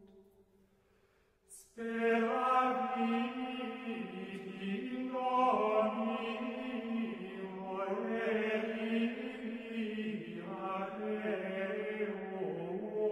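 Near silence, then about two seconds in a slow sung chant begins, with long held notes that shift in pitch now and then.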